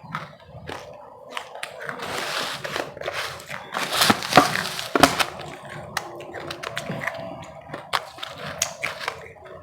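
Close-miked chewing and crunching of powdery ice: a run of crisp crunches and crackles, loudest a little after the middle.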